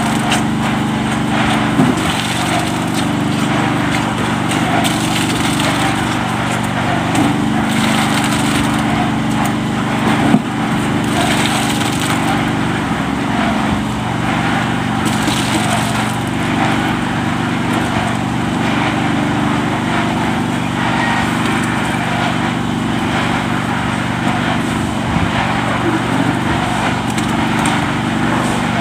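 Small engine running steadily at constant speed, with irregular clatter and scraping over it.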